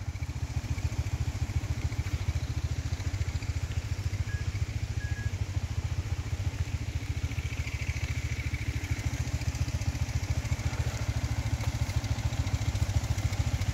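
Motorcycle engine idling steadily with an even low pulsing beat.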